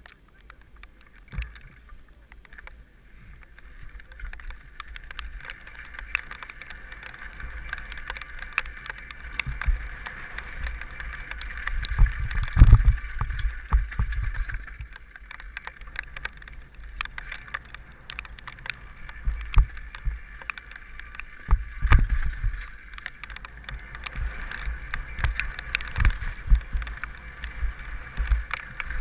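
Mountain bike descending a loose gravel and dirt trail, heard from a helmet-mounted mic: a steady rush of wind, with tyre and rattle noise over bumps. Gusts of deep rumble come and go, loudest about 12 and 22 seconds in.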